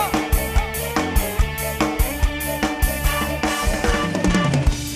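Band music in an instrumental passage: a drum kit keeps a steady beat of about two strikes a second over bass and other instruments, with no singing.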